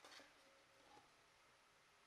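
Near silence, with a few faint clicks and scrapes at the start and a light knock about a second in, from a wooden strip being handled and laid onto a glued piece of wood.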